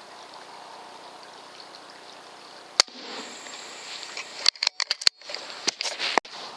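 One sharp crack of a moderated air rifle shot about three seconds in, then a quick run of sharp clicks and knocks over the last two seconds, over a steady faint outdoor hiss.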